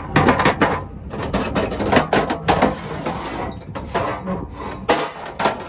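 Irregular clicks and knocks in quick bunches, one in the first second, another about two seconds in and another near the end, over a low background rumble.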